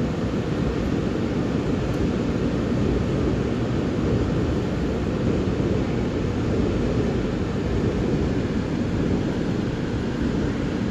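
Steady low rumble of a moving electric commuter train, heard from inside the passenger car.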